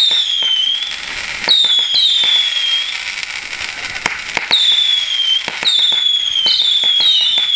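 A multi-shot firework cake fires shot after shot with whistling tails. About seven high whistles each slide down in pitch over roughly a second, among sharp pops and cracks from the launches and bursts.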